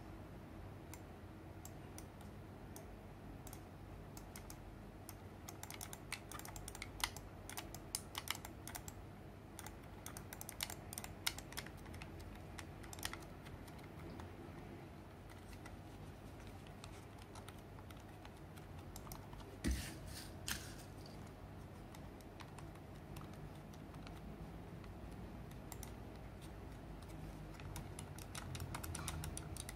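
Fingers pressing grip tape onto a Razer Viper Mini gaming mouse make scattered light clicks and taps, busiest from about six to fourteen seconds in, with two louder clicks around twenty seconds. A faint low hum lies underneath.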